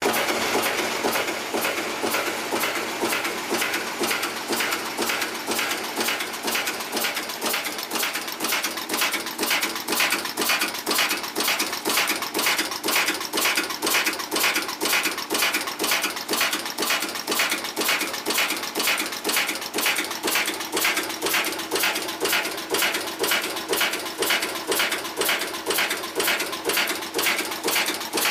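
Enclosed cold-heading screw former for self-tapping screws running steadily. It makes an even, rapid clatter of heading strokes at about three a second, one stroke for each screw blank formed from the wire.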